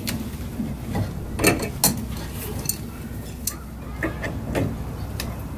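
Metal hand tools clicking and clinking against a steel pipe fitting in a bus engine compartment, in scattered, irregular strokes, while the fitting is being installed.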